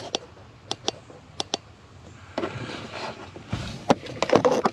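Handling and movement noise: a few light clicks and knocks, then rustling with bumps and more knocks, the loudest near the end.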